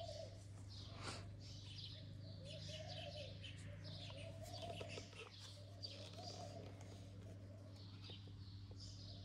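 Several birds chirping and twittering, with a lower, rounded cooing call repeated over and over beneath them and a steady low hum underneath.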